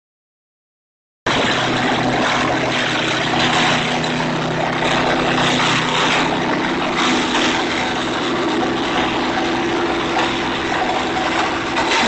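Petrol-engined Jansen wood chipper running and chipping branches fed into its hopper. A steady engine note sits under irregular crackling of wood being chipped, and the sound starts suddenly about a second in.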